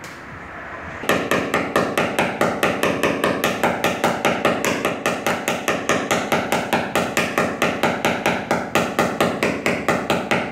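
Small hammer rapidly tapping a knockdown punch held against a car's sheet-metal roof, about five light taps a second, starting about a second in. This is the tap-down step of paintless dent repair, knocking down raised metal around the dent.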